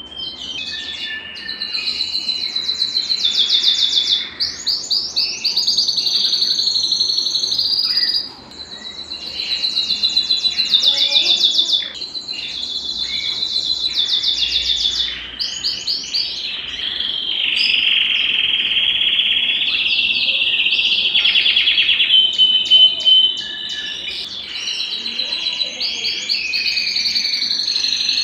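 Domestic canary (Belgian canary) singing a long, nearly continuous song of fast trills and rolls and sweeping notes, high-pitched, with a couple of short breaks.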